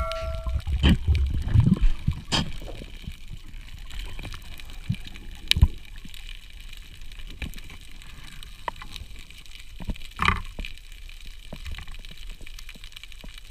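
Muffled underwater sound recorded by a diver's camera: water rushing and gurgling with a heavy low rumble for the first two seconds, then a quieter hiss broken by a few sharp clicks and knocks. A bell chime dies away at the very start.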